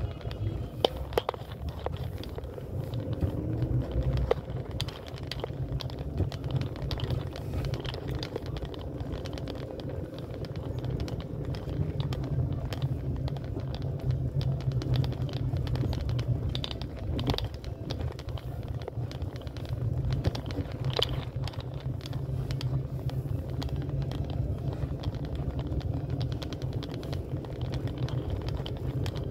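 Steady low rumble of wind buffeting a phone's microphone outdoors, with irregular light clicks and taps scattered through it.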